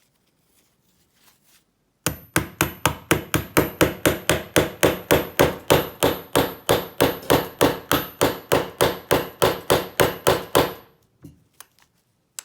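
Rapid, even hammer blows, about four a second for some nine seconds, driving a blade into the plastic body of a Federal PL90PE lockout padlock to split it open.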